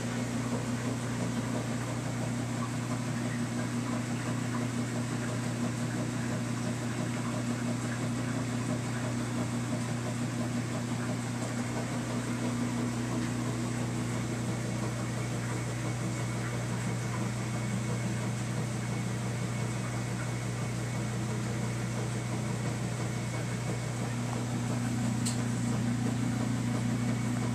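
A steady low machine hum with an even hiss over it, unchanging throughout, and a single faint tick near the end.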